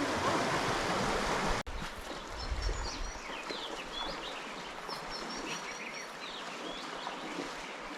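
River water rushing, cut off abruptly about a second and a half in. After that, small birds chirp and twitter repeatedly over a quieter outdoor background.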